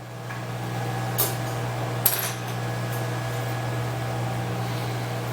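Steady electrical hum with a buzzy row of overtones, with two light clicks about one and two seconds in.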